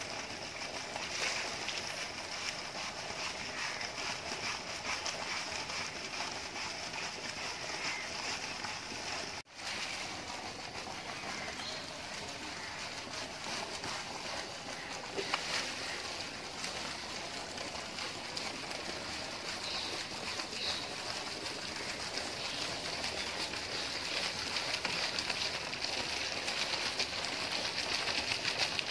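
Shallow river water running and splashing around an elephant lying in it while it is scrubbed: a steady hiss of moving water. The sound breaks off for a moment about nine seconds in.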